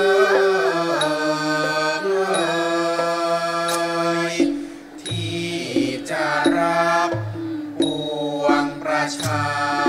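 Thai classical music: a male chorus sings a slow melody in long held notes with gliding ornaments, accompanied by a bowed saw sam sai (three-string coconut-shell fiddle). The sound drops off briefly about halfway through, then the singing resumes, with faint bell-like pings every couple of seconds.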